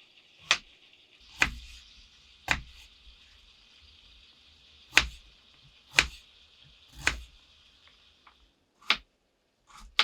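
A series of about eight sharp knocks or strikes, irregularly spaced, over a faint steady hiss that cuts off near the end.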